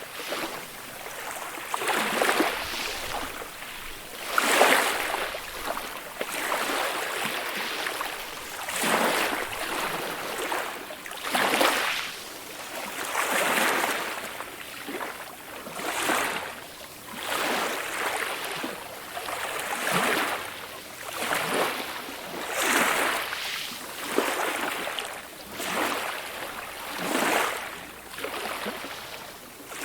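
Ocean waves washing in, a hiss that swells and fades about every two seconds as each wave breaks and runs back.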